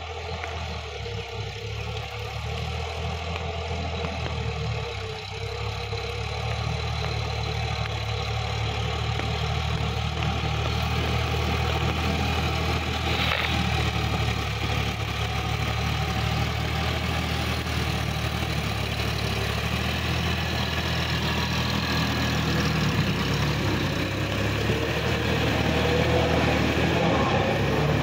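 Sonalika DI-50 RX tractor's diesel engine running steadily under load while pulling a rotary tiller, growing gradually louder as it draws near.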